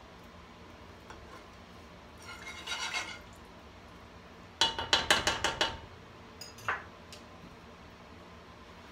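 Wire whisk stirring melting butter in a saucepan, scraping and clinking against the pan: a brief scraping stir, then about halfway in a quick run of about eight loud clinks in just over a second, then a couple of lighter taps.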